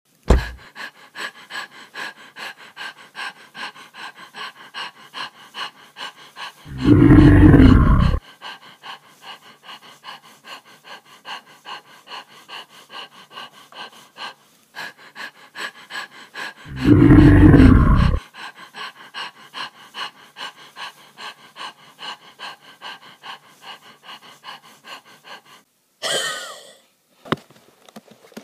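A dragon's heavy panting, a quick steady rhythm of about three breaths a second, broken twice by a long, loud, deep sound about ten seconds apart. A brief high-pitched sound comes near the end.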